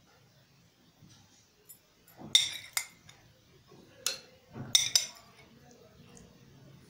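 Metal spoon clinking against glass bowls as jelly cubes are scooped and set into a trifle. There are five sharp clinks between about two and five seconds in, with quiet in between.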